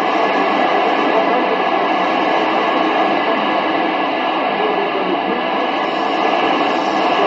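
Shortwave AM broadcast of Ifrikya FM on 21550 kHz coming through a Kenwood R-1000 receiver: a weak signal buried in steady hiss and static, with a faint voice in the noise.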